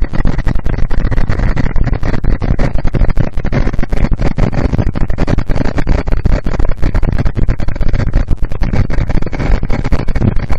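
Heavy wind buffeting and road rumble on a cruiser motorcycle's bike-mounted camera riding at highway speed. The sound is loud, rough and distorted.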